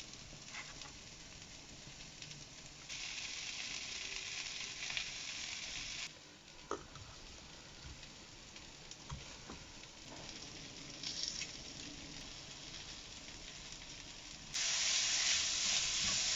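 Chopped vegetables and spices frying in olive oil in a pan, a steady sizzle with a few light knocks of a utensil stirring. The sizzle is loudest near the end.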